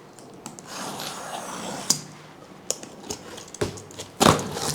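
Cardboard speaker packaging being opened and handled: a scraping, sliding sound at first, then a few light knocks and clicks, and a louder rustling scrape near the end.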